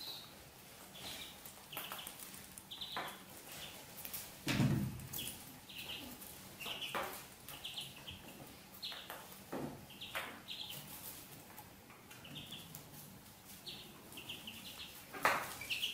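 Ducklings peeping in short, high, repeated chirps, mixed with rustling of dry hay and a louder soft thump about four and a half seconds in.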